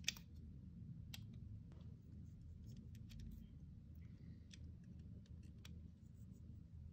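Scattered faint clicks and scrapes of a snap-off utility knife blade working a small carved wooden propeller, with one sharper click just after the start, over a low steady hum.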